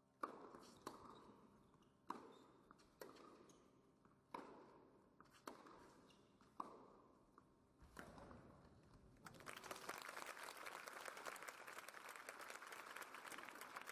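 Tennis rally on an indoor hard court: about seven sharp racket-on-ball strikes roughly a second apart, each echoing in the hall. Crowd applause breaks out about nine seconds in, once the point is won.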